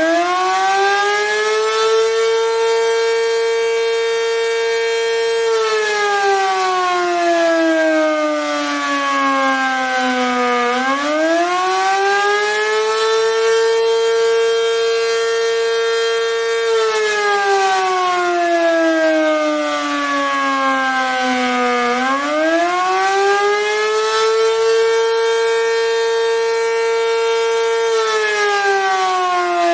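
ACA Banshee 115 outdoor warning siren sounding the attack signal: a loud wail that rises quickly, holds its high pitch for about four seconds, then slides slowly down. The cycle repeats about every eleven seconds, rising three times.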